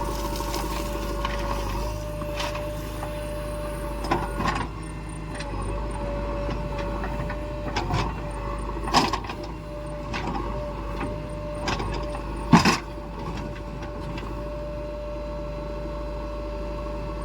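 JCB 3DX backhoe loader's diesel engine running steadily under work, with a steady whine. Several sharp clanks and knocks, the loudest about nine and twelve and a half seconds in.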